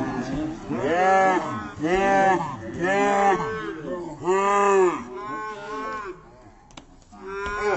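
Slowed-down voices of people shouting, stretched into long, deep calls that each rise and fall in pitch, about one a second, with a short lull near the end.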